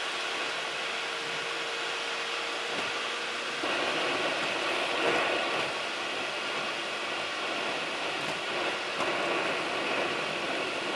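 Car driving along a road, heard from an in-car camera: steady road and tyre noise, with a faint steady hum for the first few seconds.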